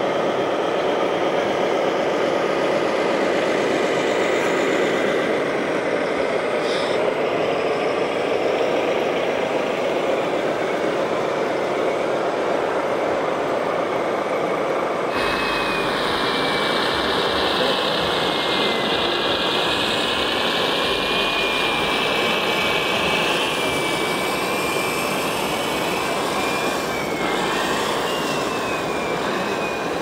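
Engine sound of radio-controlled scale trucks driving, over a steady hall din. After a cut about halfway through, a thin wavering whine joins and runs on.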